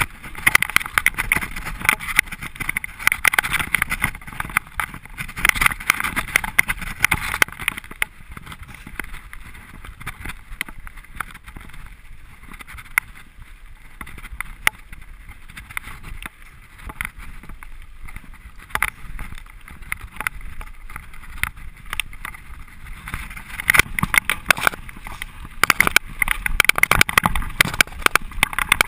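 Mountain bike riding down a rocky dirt trail: tyres running over stones and loose dirt while the bike rattles and clatters with many sharp knocks. It is roughest and loudest in the first several seconds and again near the end.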